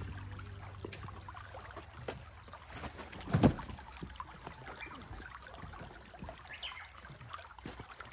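Old carpets and bedding being handled and loaded onto the bed of a kei truck: scattered rustling and scraping, with one loud thump about three and a half seconds in as a heavy rolled carpet lands on the truck bed.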